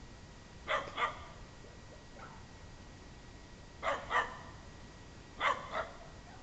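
Small dog barking at a deer: three pairs of short, quick barks, with a fainter single bark between the first two pairs.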